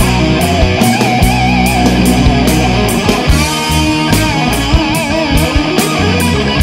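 Rock band recording with a sustained electric-guitar lead line, bent and held with wide vibrato, over a steady drum beat and bass, with no vocals.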